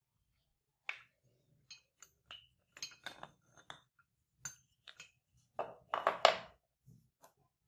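Light knocks and clinks of wooden blocks and tools being handled on a workbench around a metal bench vise. Single taps come first, then a quick cluster of louder knocks about six seconds in.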